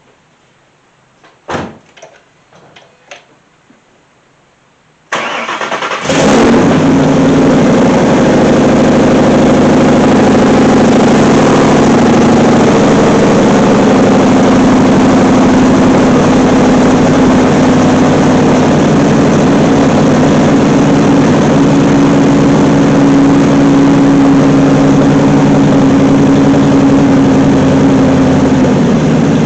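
A few light clicks, then the Mustang GT's 5.0 V8 is cranked by its starter for about a second, catches about six seconds in and runs at a loud, steady idle. The engine has fresh coil packs, and the owner judges it no longer misfiring at idle.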